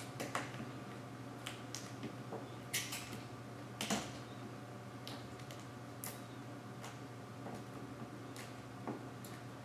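Scattered faint crinkles, taps and scrapes of vinyl wrap film and a plastic hard card as the film edge is tucked in along the back edge of the hood, over a steady low hum.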